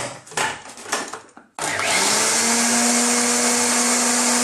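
Electric food processor: a few knocks, then about a second and a half in the motor starts suddenly, spins up briefly and settles into a steady loud whine as it blends a wet marinade of fresh coriander, green chili and coconut milk.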